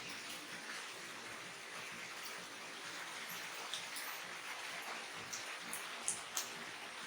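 Infant formula being scooped and tipped into a baby bottle: a few light clicks and taps of the scoop against the bottle in the second half, over a steady hiss.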